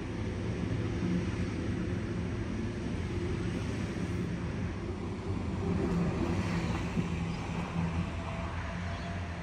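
Train running through the station: a steady low hum with rumbling noise.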